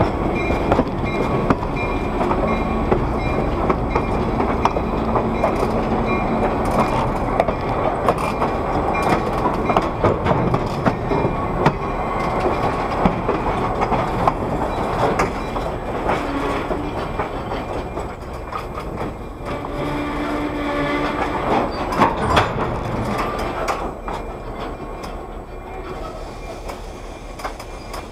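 Railcar wheels rolling over the track: a steady rumble with frequent clicks and knocks at the rail joints and a few brief squealing tones, getting quieter near the end.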